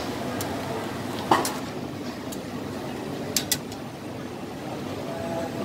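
Sharp metal clinks of a noodle strainer and tongs against a stainless-steel stockpot: one about a second in, then two quick ones just past the middle, over a steady background hum.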